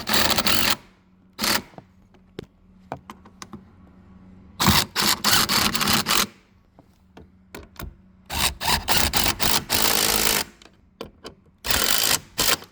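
Power driver set on low torque, running in short bursts of about half a second to two seconds as it drives the seat belt post bolts, with small clicks and knocks of handling between bursts.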